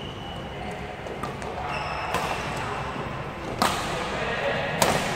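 Badminton rackets striking the shuttlecock in a rally: two sharp smacks about three and a half and five seconds in, the second the loudest, with a few fainter hits and short shoe squeaks on the court before them.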